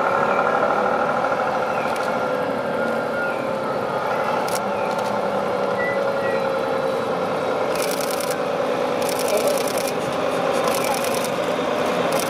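Vehicles driving slowly past at street level: an SUV, then a heavy Volvo tractor unit's diesel engine coming closer at low speed as it hauls a loaded low trailer.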